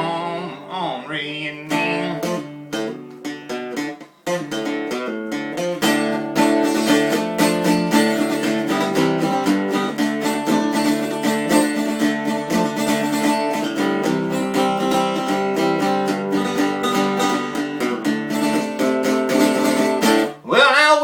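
Guitar strumming chords in an instrumental break of a country song. A held sung note fades out at the start, and singing comes back near the end.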